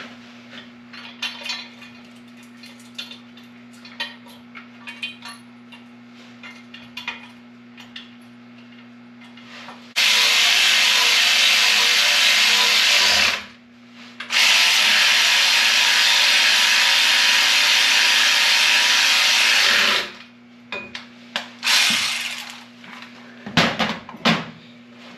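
A power tool runs for about three seconds, stops briefly, then runs again for about six seconds, loud and steady. Before and after it come light clinks and taps of tools and metal parts.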